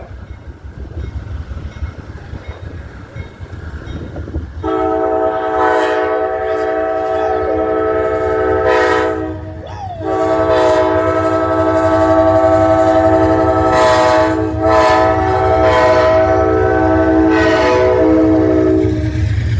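A heritage-painted diesel locomotive's air horn sounds a chord of several notes in two long blasts, the first about five seconds and the second about nine, with a short break between, over the low rumble of the train.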